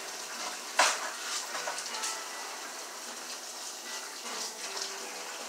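Kitchen tap running steadily into the sink, with one sharp clatter about a second in.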